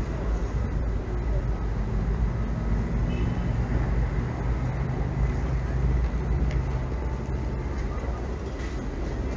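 Low, steady rumble of a vehicle engine close by over street traffic noise, easing off near the end.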